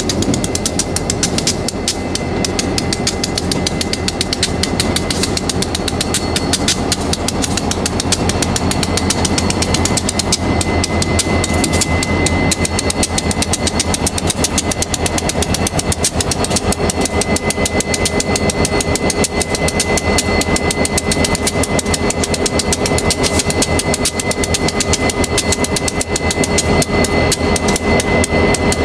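Diesel-electric freight locomotives running at low speed as they come close, the engines giving a fast, even pulsing rhythm. A steady high whine joins about ten seconds in.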